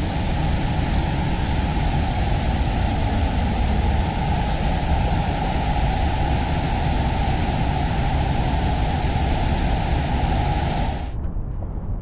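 Loud, steady rushing of a large waterfall close by, a dense hiss with a deep rumble under it. It stops abruptly about eleven seconds in, leaving a much quieter low background.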